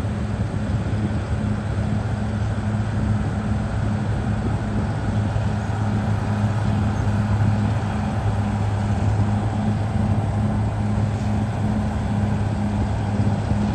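Caterpillar D6R XL bulldozer's diesel engine running steadily, a deep continuous hum with a regular throb.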